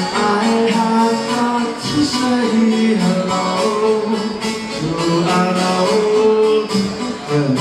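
Live rock band playing, with drums, electric guitars and bass, as heard from the audience in a concert hall.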